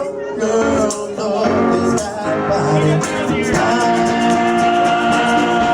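Rock music with a male voice singing over guitar. A single long note is held steady through the second half.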